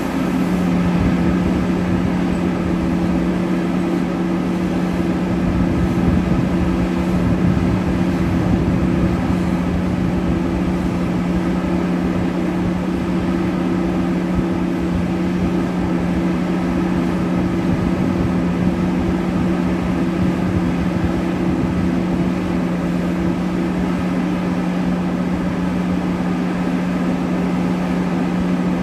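Heavy mining machinery's large diesel engines running steadily under load, a constant low drone with a steady hum.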